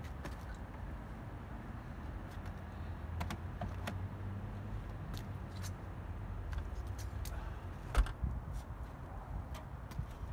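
Scattered clicks and knocks of hand work and of an aluminium stepladder being moved, with one sharp knock about eight seconds in, over a steady low rumble.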